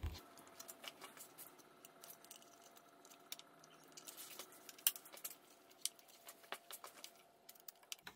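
Faint scattered clicks and rustles of spark plug wires being handled and pressed into the plastic wire guides of a Mercedes-Benz M119 V8.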